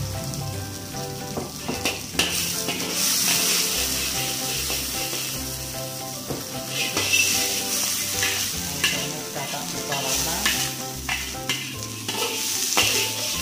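Shrimp and squid sizzling as they are stir-fried in hot oil, with a steady hiss and a spatula knocking and scraping against the pan several times.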